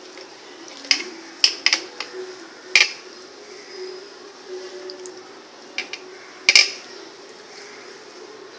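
Hands handling marinated pomfret on a ceramic plate: a few sharp clicks and knocks against the plate, loudest about six and a half seconds in, over a faint steady hum.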